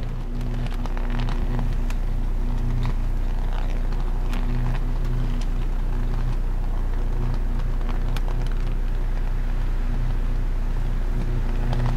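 Electrical arcing on high-tension lines at a power substation: a loud, low mains buzz that swells and eases, with scattered sharp crackles and snaps from an ongoing fault arc.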